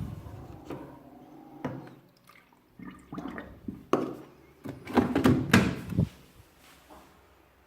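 Candy washing machine on a cotton 40° wash, its drum tumbling the laundry: irregular swishes of water and soft thuds, loudest about five to six seconds in, then dying away.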